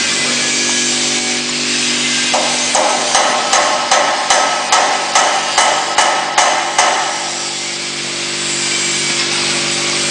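Factory machinery running with a steady hum and hiss. About two and a half seconds in, a run of about ten sharp mechanical clacks starts, some two and a half a second, and stops after about four seconds.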